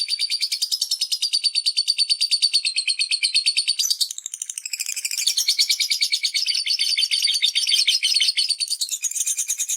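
A parrot giving a fast, unbroken run of high chirps, more than ten a second, with a short stumble about four seconds in before the chirping picks up again.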